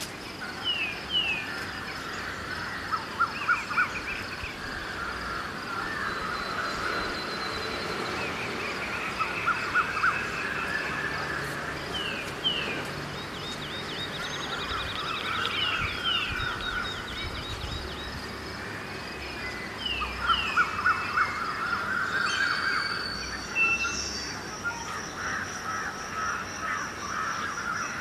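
Birds chirping and trilling in short repeated calls at dawn, over a steady high insect-like drone and a faint low rumble of distant traffic.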